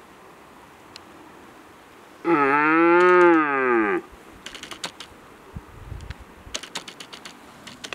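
A red deer stag roaring once: a single long bellow of nearly two seconds, starting about two seconds in, rising and then falling in pitch, the rutting call of a stag. Faint scattered clicks and ticks follow.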